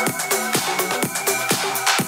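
Upbeat electronic dance music with a steady kick drum about twice a second and crisp hi-hats.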